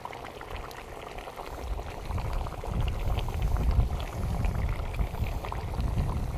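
Wind buffeting the microphone, an uneven low rumble that builds from about a second and a half in, over light crackling and ticking from the kazan of meat and potatoes.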